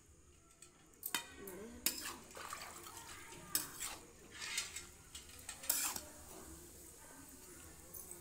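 Metal spatula stirring meat in a steel kadhai, scraping and clanking irregularly against the pan.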